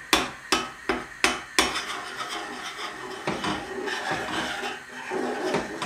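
Metal spoon stirring milk in a stainless steel saucepan: sharp clinks against the side of the pan, about three a second for the first second and a half, then a steadier scraping of the spoon around the pan.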